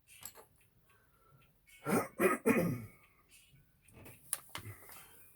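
A man coughing or clearing his throat, a quick run of about three rough coughs roughly two seconds in.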